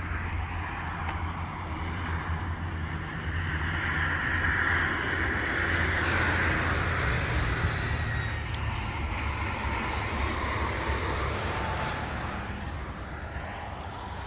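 Steady low engine drone with a rushing noise that swells to its loudest about five to seven seconds in and then slowly fades, as of a vehicle passing.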